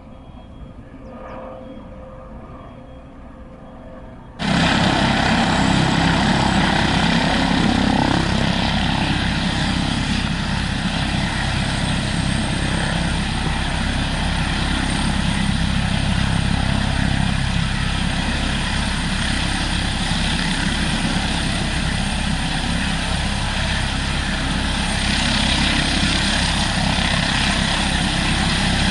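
Airbus ACH145 (five-bladed H145) helicopter running on the ground with rotors turning: twin turboshaft whine over steady rotor and Fenestron noise, starting abruptly about four seconds in after quiet background. It grows a little louder and brighter near the end, in the lead-up to lift-off.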